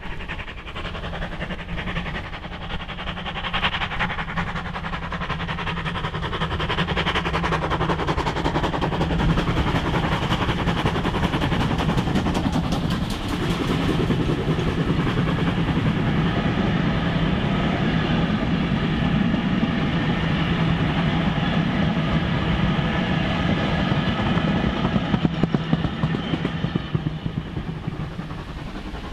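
Steam-hauled passenger train running past on the line. The sound builds over the first several seconds, holds steady as the train rolls by, and falls away near the end.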